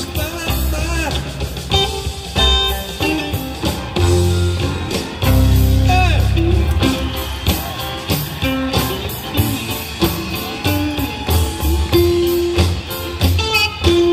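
Background music: a blues-rock song with guitar and a singing voice over a steady bass beat.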